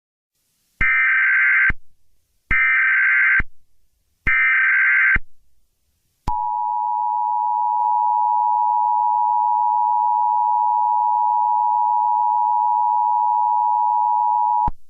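Emergency Alert System header: three one-second bursts of SAME data tones, a rapid warbling chirp, with short gaps between them. Then comes the EAS attention signal, a steady two-tone (853 Hz and 960 Hz) alarm held for about eight seconds before it cuts off sharply.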